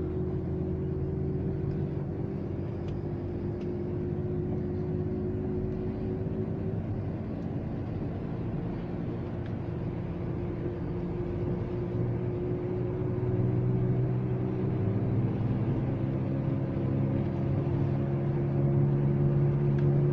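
Worn front wheel hub bearing on a Volvo S60 T5 droning with a steady hum over road noise while the car is driven; the hum grows louder about two-thirds of the way through and again near the end. The owner puts it down to the left front hub, since it hums more when turning right.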